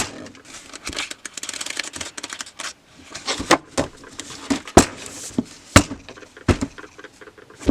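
Scratchy rustling of paper and pen for a couple of seconds, then a string of separate sharp taps and clicks, like drawing supplies being handled and set down.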